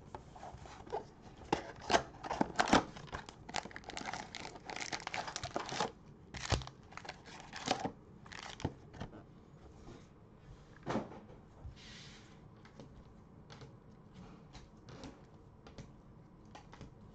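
A cardboard mega box of trading cards being torn open by hand, with tearing and crinkling of wrap and card for the first few seconds. A low thump about six seconds in and a few knocks follow as the foil packs come out and are set down, then only light ticks and rustles.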